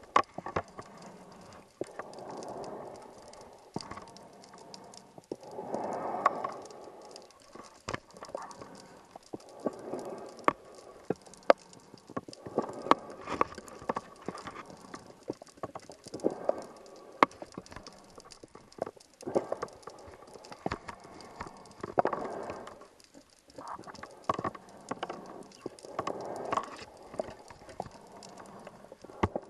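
Scuba regulator heard underwater: exhaled air bubbles gurgling out in bursts about every three to four seconds, with many sharp clicks and knocks in between.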